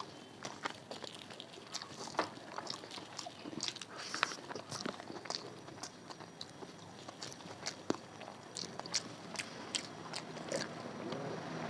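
A person chewing and biting crunchy food close to the microphone, with many short, crisp crunches and mouth clicks at an uneven pace.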